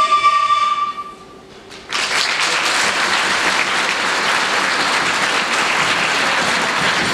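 The last ringing notes of the music die away, and after a brief lull about two seconds in, a large audience breaks into steady applause.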